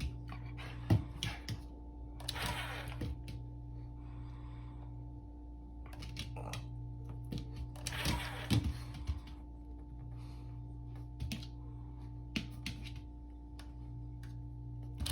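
Hair dryer running with a steady hum. Its blowing air comes in hissy bursts about a second long, mixed with scattered sharp clicks and taps.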